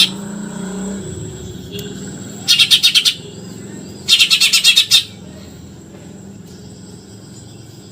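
Eurasian tree sparrow giving rapid chattering bursts of sharp chirps, the 'nyerecet' chatter used as a master call for training songbirds. There are two bursts, each under a second, about one second apart.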